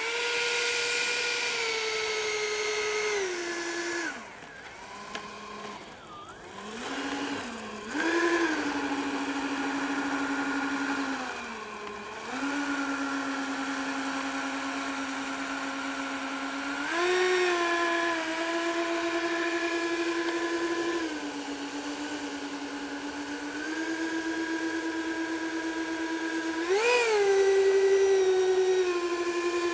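Electric ducted-fan motors of a radio-control Su-35 jet model whining as it taxis. The pitch steps up and down with the throttle, with a brief louder rise near the end.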